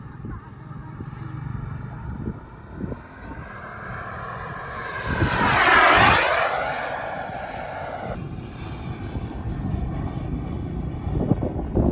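Miniature turbine engine of a radio-controlled model jet whining as the jet passes close by, loudest about six seconds in; its highest whine cuts off about two seconds later. Gusty wind rumbles on the microphone throughout.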